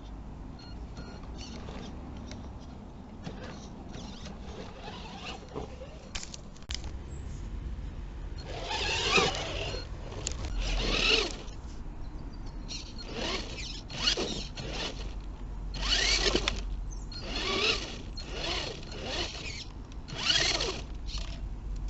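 Electric motor of a radio-controlled car whining in repeated bursts of throttle. There are about eight bursts from partway in, each about a second long, the whine rising then falling in pitch.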